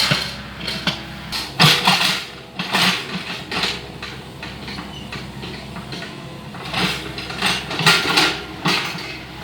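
Mini excavator engine running steadily, with irregular loud bursts of noise over it, coming in two clusters, one early and one in the second half.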